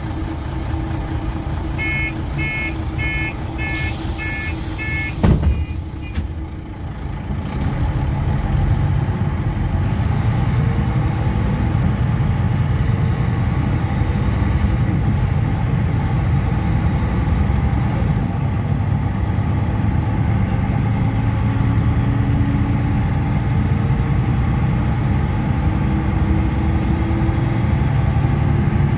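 Rába Premier 091 city bus heard from inside: a quick series of door-warning beeps and a hiss of air, then a knock as the door shuts about five seconds in. The diesel engine then pulls the bus away and runs under load, its pitch rising and falling as it gathers speed and changes gear.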